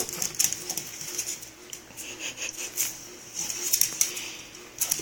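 Chiweenie puppy pawing after its ball: a string of light, irregular scratches and clicks from its claws, with short pauses between them.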